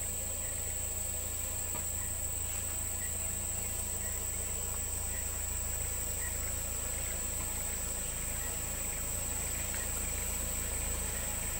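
Steady high-pitched insect drone with faint chirps about once a second, over a low steady rumble.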